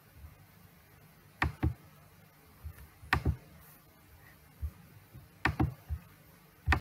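Sharp knocks, mostly in close pairs about every two seconds, with a few weaker single taps between them, over a faint low hum.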